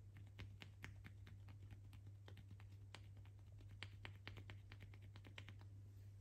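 Faint, irregular light taps and clicks of fingers and palm working at a woman's ear during an ear massage, a few per second, over a steady low hum.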